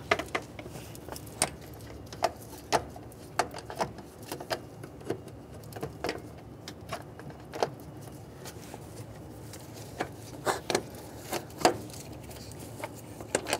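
Irregular light clicks and knocks of a new aluminium-housed starter motor being worked down by gloved hands into a Toyota Camry's cramped engine bay, bumping against the block and surrounding hoses and brackets as it is tilted into place.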